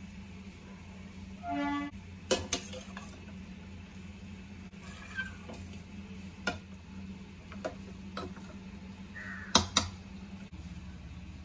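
A metal spoon clinking against a stainless steel saucepan as milk and grated carrot are stirred: a handful of sharp clinks spread out, the loudest two close together near the end. A steady low hum runs underneath, and one short pitched call sounds about a second and a half in.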